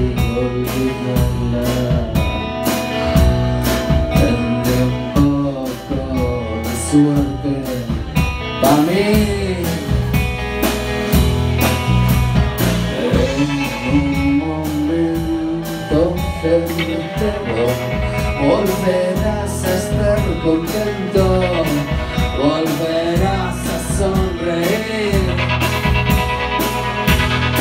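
Live rock band playing: electric guitars, bass and drums, with a lead melody line that bends in pitch from about nine seconds in.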